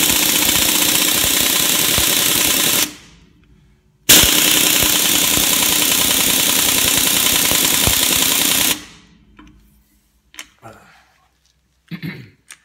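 Harbor Freight Central Pneumatic air impact wrench hammering on a truck lug nut in two long bursts: one runs to about three seconds in, then a second of about four and a half seconds after a short pause. The nut does not break loose: the cheap wrench still lacks the torque, even with its airflow improved. A few light knocks follow near the end.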